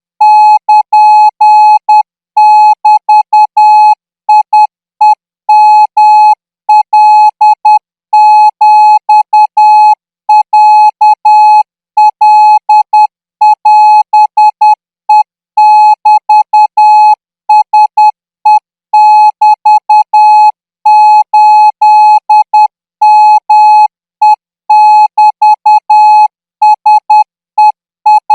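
Morse code practice tone sent at 14 words per minute: a single steady beep keyed on and off in short dots and longer dashes, with brief gaps between characters.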